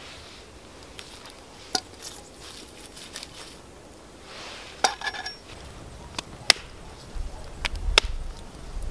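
A small campfire crackling, with scattered sharp clicks and knocks and a brief metallic clink as a metal camp pot and a hatchet are handled beside it. A low rumble builds near the end.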